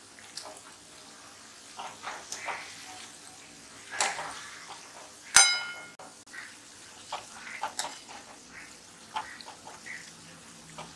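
Onion bhajis deep-frying in hot oil in a kadhai over medium heat: a low steady sizzle with scattered pops and crackles. About halfway through comes one sharp, ringing metallic clink, the loudest sound.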